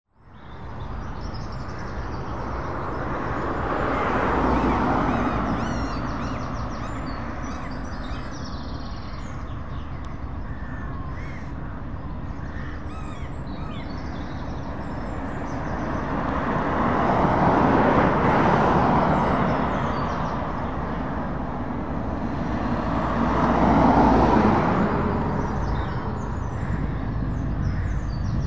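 Scania Super 164L V8 truck idling with a steady low rumble. Three times the sound swells and fades as other vehicles pass by, and crows caw in the background.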